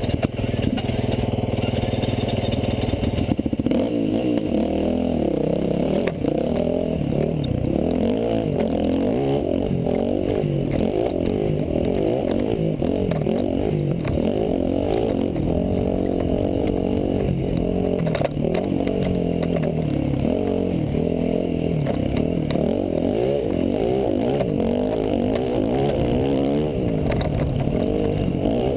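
Dirt bike engine running hard, its revs rising and falling constantly as the rider works the throttle and gears. A few sharp knocks stand out above it.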